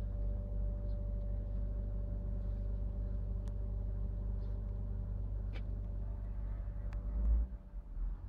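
Truck diesel engine idling steadily, a low rumble with a steady hum over it and a few faint clicks. About seven seconds in there is a brief louder low thump, and the rumble dips for a moment.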